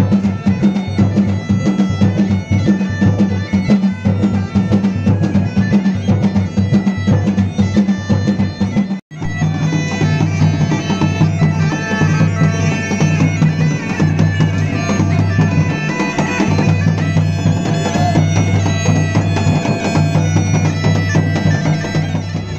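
Mashakbeen (Garhwali bagpipe) music with drumming: a melody played over a steady drone. It breaks off for an instant about nine seconds in, then resumes with the drone pitched slightly lower.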